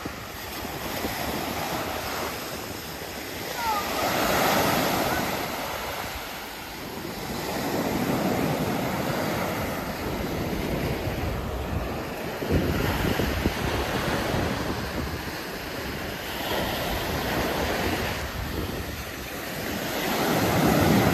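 Ocean surf breaking and washing up a sand beach, the rush swelling and fading every few seconds as each wave comes in.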